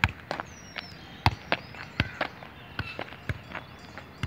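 Footsteps and thuds from football play on the ground: a quick, irregular series of sharp impacts, two or three a second, the sharpest about a second in.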